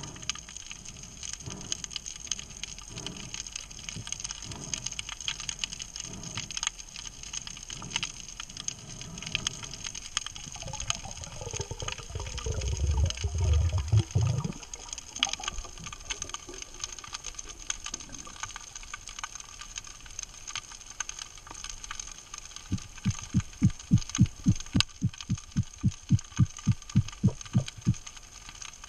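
Underwater sound picked up by a diver's camera: a constant fine crackle of clicks, with slow low pulses about every second and a half at first. A louder low rumble comes a little before halfway, while the camera is close against the rock, and a quick run of low thumps, about four a second, comes in the last few seconds.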